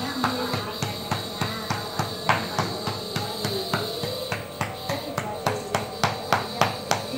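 A hand patting a child's back rhythmically, about three pats a second, as chest-percussion ("tepok tepok") therapy to loosen phlegm during a cough. A steady high hiss runs underneath.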